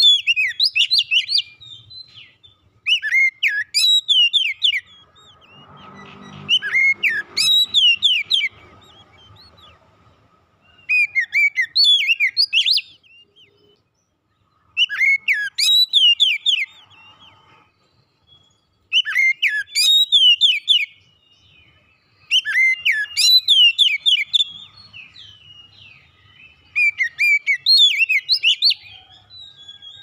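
Oriental magpie-robin singing: eight phrases of rapid, varied whistled notes, each about two seconds long, with pauses of a second or two between them.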